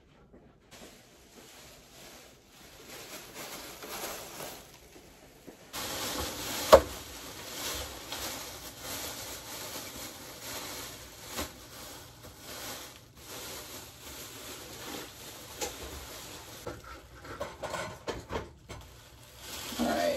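Plastic grocery bags rustling and crinkling as groceries are unpacked onto a kitchen counter: faint at first, louder after about six seconds. One sharp knock of an item set down on the counter about seven seconds in.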